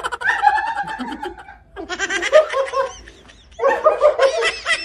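A woman laughing hard in high-pitched, squealing bursts, three of them with short pauses between.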